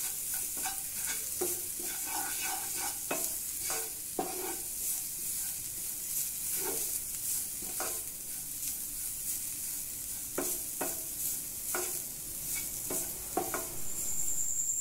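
Wooden spatula scraping and stirring grated carrot and onion in a nonstick frying pan, with the steady sizzle of the vegetables frying. A steady high-pitched tone comes in near the end.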